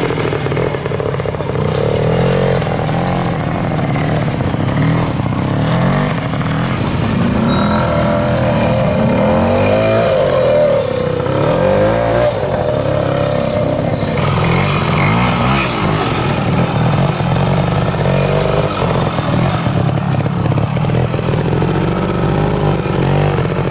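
Classic two-stroke trial motorcycle engines at low speed, revved and eased off again and again, the pitch rising and falling every second or two as the bikes pick their way over rough ground.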